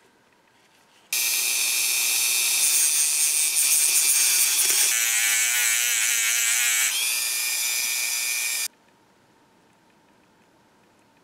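A high-speed rotary tool with a sanding disc grinds down a protruding screw head on a cast-iron press frame. The steady whine starts abruptly about a second in, wavers in pitch in the middle as the disc bears on the metal, and cuts off suddenly a few seconds before the end.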